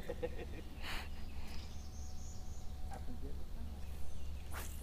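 Outdoor ambience over water with a steady low rumble, broken by two short rustles, one about a second in and one near the end, with a faint thin high buzz between them.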